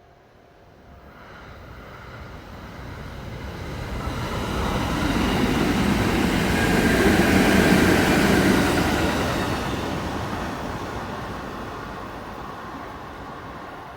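Kintetsu Kyoto Line electric train passing by: it grows steadily louder for about seven seconds, peaks a little past the middle, then fades away.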